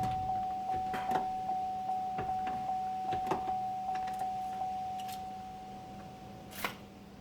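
A vehicle's electronic warning chime pinging steadily, about two or three pings a second, fading away about six seconds in, typical of a key-in-ignition or door-ajar warning with the cab door open. A few light plastic clicks and knocks from trim panels being handled.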